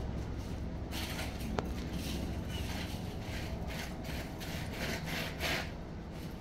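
A run of about ten short rasping, rubbing strokes, roughly two a second, which stops a little before the end. Under it runs a steady low hum.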